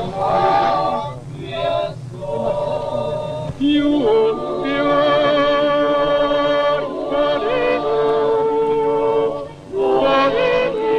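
A choir singing in several voices, holding long notes that step from one pitch to the next, with short breaks between phrases; the longest comes about a second and a half before the end.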